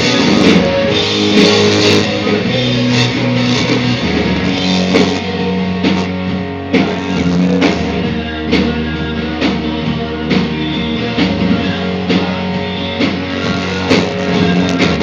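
Live rock band playing loud: held electric guitar notes over a steady drum beat.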